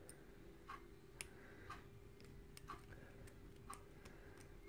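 Near silence with faint, regular ticking, about two ticks a second, over a faint steady hum.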